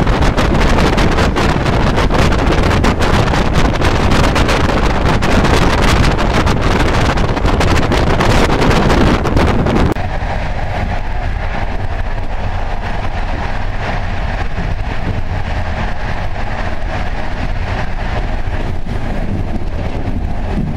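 Passenger train running at speed, heard from its window: loud wind rush and running noise with many short clicks, which drops abruptly about halfway through to a quieter, duller steady rumble.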